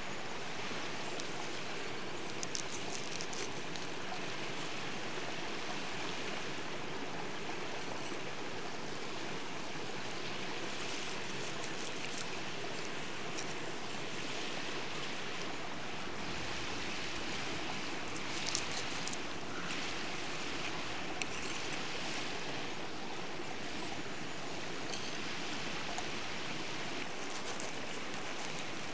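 Steady rushing of a stream. A few short crisp crunches sound over it as a knife cuts through crusty grilled bread rolls and steak on a stone.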